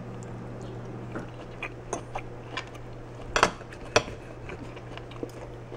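Metal knife and fork clinking and scraping on a glass plate while cutting a grilled pork steak: a scatter of light clicks, with two sharper clinks about three and a half and four seconds in. A steady low hum runs underneath.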